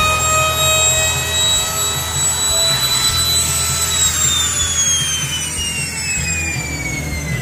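Handheld electric trim router whining at high speed while grooving an HPL-laminated door panel, its pitch falling steadily from about four seconds in as the motor slows.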